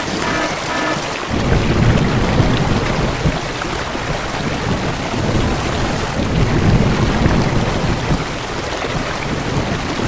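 Heavy rain falling, with thunder rumbling low from about a second in, swelling twice.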